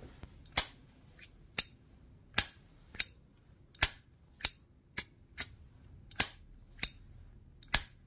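Zippo 1937 Vintage replica lighter's lid being flipped open and snapped shut again and again: about a dozen sharp metallic clicks, roughly half a second to a second apart. The lighter is new, so its five-barrel hinge is still a little stiff.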